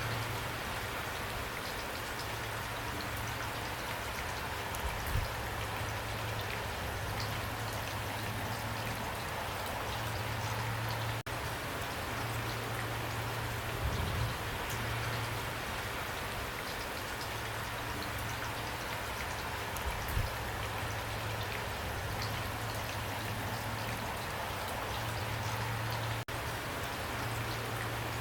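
Pouring rain: a steady, dense hiss of rainfall with fine drop ticks throughout and a few louder single drops knocking now and then. A low hum comes and goes underneath.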